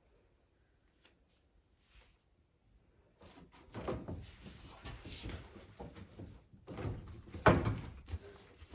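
Clattering and knocking of washing machine parts being handled and worked loose, in an irregular run starting about three seconds in, with one sharper knock near the end.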